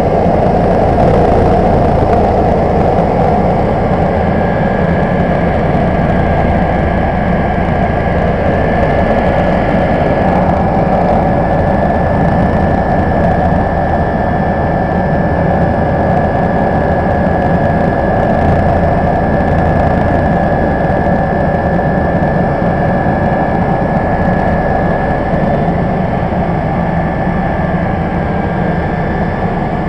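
Cabin noise of a twin-turbine BO 105 helicopter in flight: a steady loud drone of engines and rotor, with a steady high whine that comes in about four seconds in.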